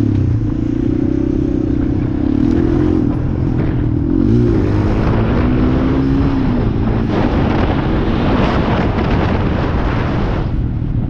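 Honda TRX250EX quad's single-cylinder four-stroke engine running under way, with a short blip of revs about four seconds in. From about five seconds a loud rushing noise builds and drowns out the engine, easing off near the end.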